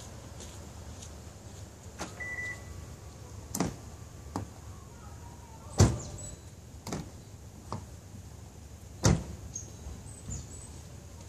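Mechanical clunks and clicks from a car's body: about eight separate knocks, two of them much louder, with a short high beep about two seconds in.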